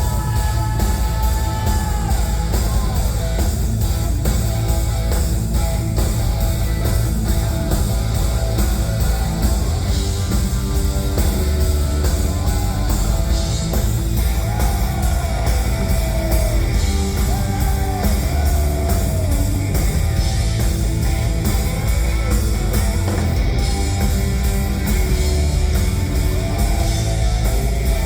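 Loud rock music with electric guitar and a heavy bass end, playing steadily.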